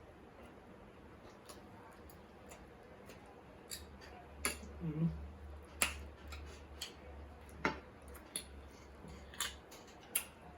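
A person eating close to the microphone: scattered sharp clicks of chewing and mouth sounds, with a short hummed sound about five seconds in.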